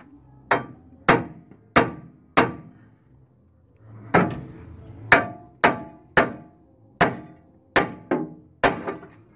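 Hammer blows on the steel steering knuckle of a RAM pickup's front suspension, each one ringing, struck to knock the suspension loose so it drops free. Four blows, a pause of about a second and a half, then eight more at a quicker pace.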